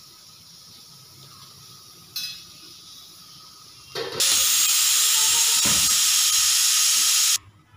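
Aluminium pressure cooker venting steam: a loud, steady hiss lasting about three seconds that cuts off suddenly. A brief clatter comes about two seconds in, before the hiss.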